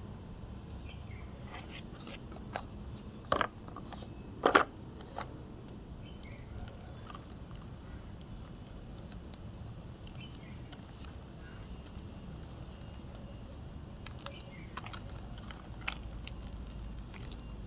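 Blocks of gym chalk being crushed, giving scattered crisp crunches and crackles. Two louder crunches come about three and a half and four and a half seconds in.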